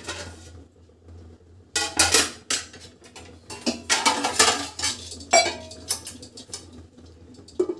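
Aluminium pot lid and other metal kitchen utensils clinking and clattering in several short bursts, about two, four and five and a half seconds in.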